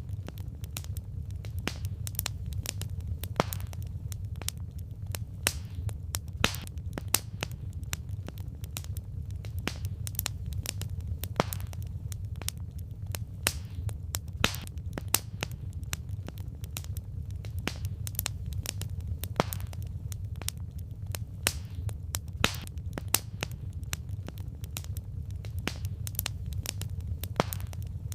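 Firewood burning in a campfire, crackling with sharp irregular snaps and pops over a steady low rumble.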